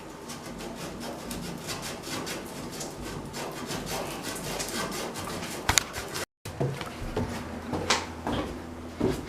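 Quick, repeated rubbing strokes on a pipe, scrubbing off corrosion. The strokes break off about two thirds of the way through, and a few sharper knocks follow.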